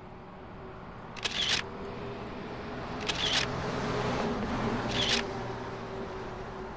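A short, sharp click sounds three times, about two seconds apart, over a steady low drone. The drone swells slightly and begins to fade near the end.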